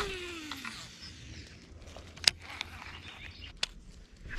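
Fishing reel spool whirring out on a cast, a whine that falls in pitch over about a second as the spool slows. A few sharp clicks follow, the loudest about halfway through, and another cast's whine starts right at the end.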